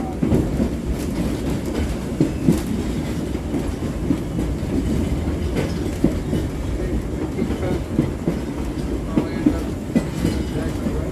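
Vintage J.G. Brill trolley car running along the track, heard from inside its operator's cab. A steady low rumble of the wheels and running gear, with irregular clacks and knocks as the wheels pass over rail joints.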